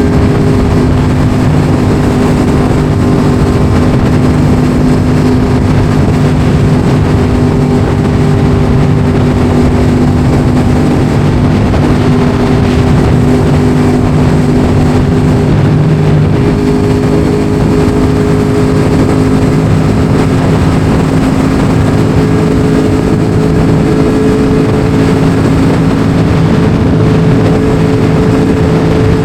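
Yamaha R1 sport bike's inline-four engine running at a steady cruising speed, its pitch holding nearly constant and creeping slightly higher in the second half, over a steady rush of wind noise.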